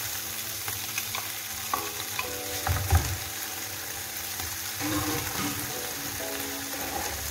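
Tuna mixture sizzling in a stainless steel frying pan as a wooden spoon stirs and scrapes it, with diced tomato tipped in from a bowl at the start. A louder thump about three seconds in.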